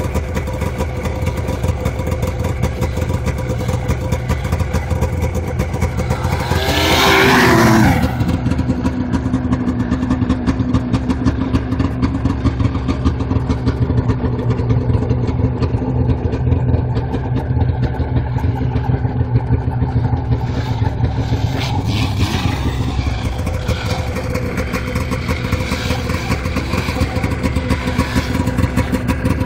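Arctic Cat F1100 turbo snowmobile, a turbocharged four-stroke three-cylinder, running steadily as it circles through deep snow. It swells much louder for about a second roughly seven seconds in, its pitch falling as it eases off, then settles back to a steady drone.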